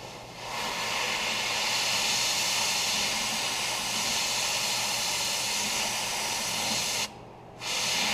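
Aerosol can of Loctite Freeze and Release spraying onto a seized exhaust manifold stud in a torch-heated cast-iron cylinder head: a long steady hiss that stops about seven seconds in, then a second short spurt near the end. The spray is shock-chilling the stud while the surrounding cast iron stays hot, to break the stud free.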